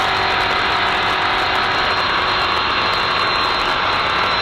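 Off-road trophy truck running flat out, heard from inside the cab: a loud, steady rush of engine, drivetrain and road noise with no let-up.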